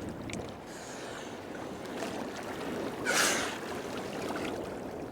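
Water sloshing and lapping in open sea, with one short loud rush of water about three seconds in.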